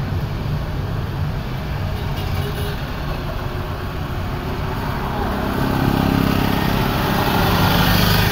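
Road noise inside a moving car in city traffic: a steady low rumble of engine and tyres. About halfway through, an engine hum comes up and grows louder.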